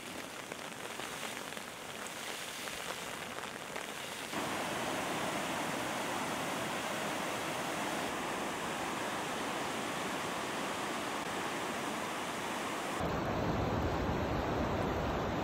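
Muddy floodwater rushing in a torrent, a steady noisy wash. About four seconds in it becomes louder and fuller, and near the end a heavy low rumble joins it.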